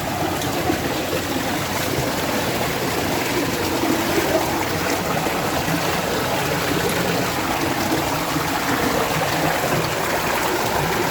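Steady rush of running water over rocks at a mountain stream near a waterfall.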